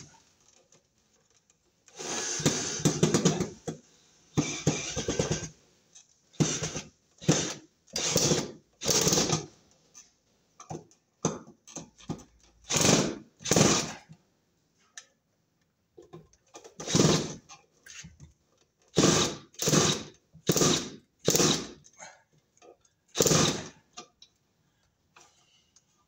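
Cordless drill driving screws through a ceiling electrical box into a wooden joist in repeated trigger pulls: two longer runs, then about a dozen short pulses.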